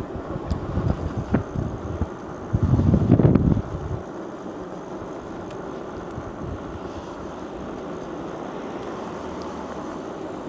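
Wind buffeting the microphone of a camera mounted on a moving e-bike. It comes in low, uneven gusts for the first few seconds, strongest about three seconds in, then settles to a steady rush.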